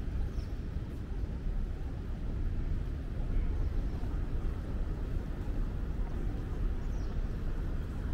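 Outdoor city ambience: a steady low rumble with no distinct events.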